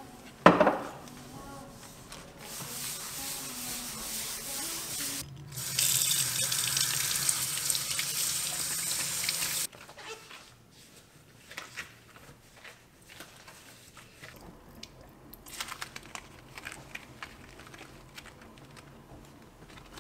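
Kitchen tap running into a white ceramic sink, softly at first and then at full flow for about four seconds before it is shut off suddenly; light rubbing and handling sounds follow. A sharp knock near the start is the loudest sound.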